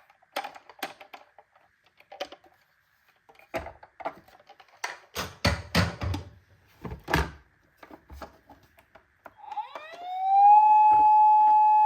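Hard plastic knocks and clatters, a few at a time with gaps, as toy vehicles are handled. Near the end a toy emergency vehicle's electronic siren starts, sliding up in pitch and then holding one steady high tone.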